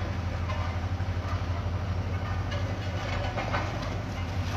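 Small asphalt road roller's diesel engine running steadily, a low even hum.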